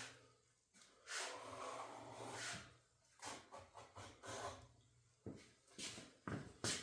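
A blade scoring a sheet of 1/8-inch plexiglass along a clamped straight edge: a series of scraping strokes, each up to about a second and a half long, with a few shorter, sharper scrapes near the end.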